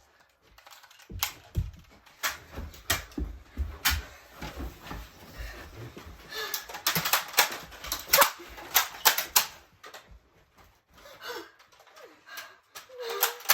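Clatter of a Nerf blaster fight: sharp plastic clicks and knocks at uneven intervals, with low handling thumps in the first half and denser clicking from about six seconds in.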